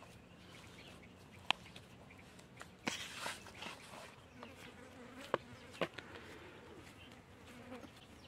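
A fly buzzing with a wavering hum, clearest in the second half, over the soft squish and rustle of hands kneading floured dough in a plastic bowl. A few sharp clicks stand out, the loudest about a second and a half in and again after about five seconds.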